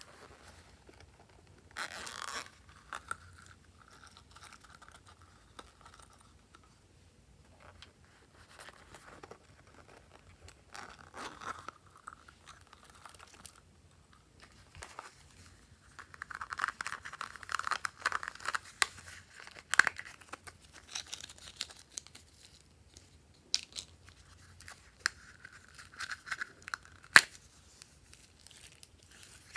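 Hands handling small plastic containers of slime add-ins and tipping their contents onto slime in a glass dish: scattered rustling and shaking, with a longer rustle a little past halfway and a few sharp plastic clicks.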